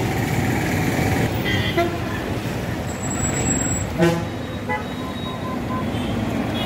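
Road traffic: a steady rumble of passing vehicles with short horn toots, the clearest about four seconds in.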